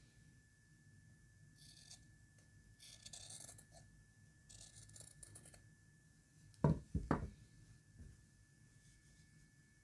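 Scissors cutting fabric: a few short, crisp snips through a small piece of cloth, then two dull knocks close together about seven seconds in.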